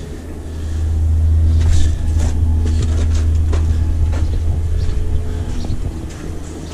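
Wind buffeting the microphone outdoors, a steady low rumble, with a few footsteps scuffing on the gravel rooftop between about one and four seconds in.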